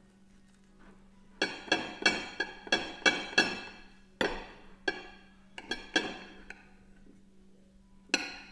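A quick run of about a dozen sharp clinks, each ringing briefly with a clear tone, then stopping, with one more clink near the end.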